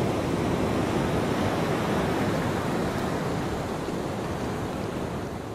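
Ocean surf: a steady rush of waves, easing slightly near the end.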